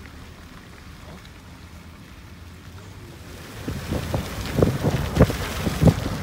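Low rumble of a car driving on a wet, potholed road. About three and a half seconds in, wind starts buffeting the microphone in irregular loud thumps.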